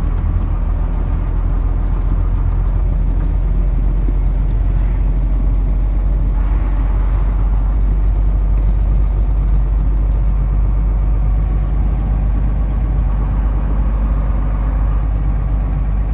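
Oil tanker truck's engine and road noise heard from inside the cab while driving at steady speed: a constant deep rumble under a wash of tyre and wind noise.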